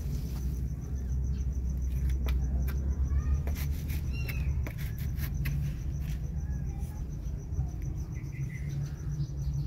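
Calico mother cat purring in a low, steady rumble while her newborn kittens nurse against her, with a few faint, short, high squeaks from the kittens a few seconds in and scattered soft clicks.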